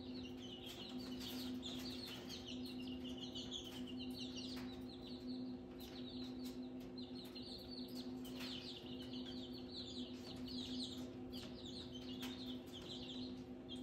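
Chicks peeping continuously inside a brooder, many short high chirps overlapping, over a steady low hum. A few light taps sound now and then.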